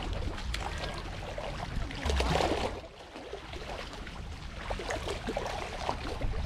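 Small waves lapping and trickling against a shallow, weedy mangrove shoreline, a steady wash of small splashes, with a louder rush of noise about two seconds in.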